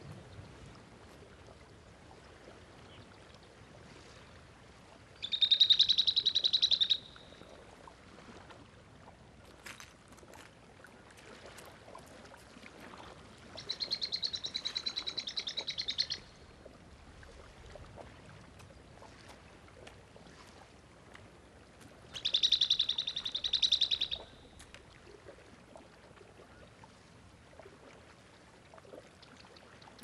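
Guanaco alarm calls: three shrill, rapidly trilled calls of about two seconds each, some eight seconds apart, the warning a guanaco gives on spotting a puma.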